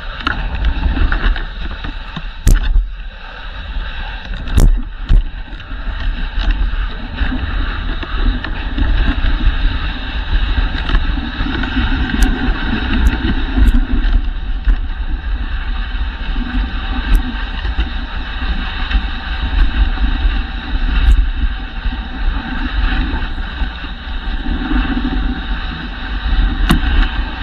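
Dog sled running along a packed snow trail behind its team: a steady rushing, rumbling noise of the runners over the snow, with a few sharp clicks and knocks from the sled scattered through.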